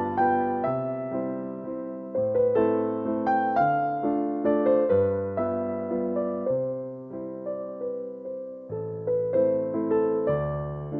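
Background music: electric piano playing a slow melody over held chords.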